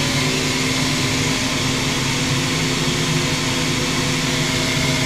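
CNC milling machine running with its spindle turning steadily, a constant machine hum with several steady pitched tones.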